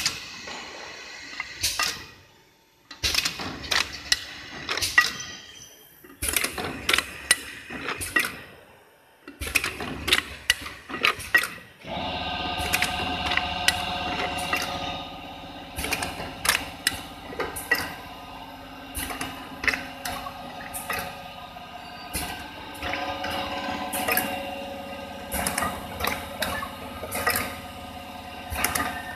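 Small automatic toothpaste tube filling and sealing machine running: repeated clicks and clacks in quick clusters as its rotary table indexes tubes. A steady hum joins in about twelve seconds in.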